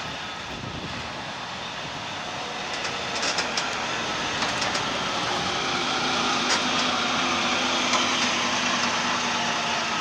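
A vintage double-decker bus's engine running as the bus drives past, growing louder as it approaches and staying loud as it goes by.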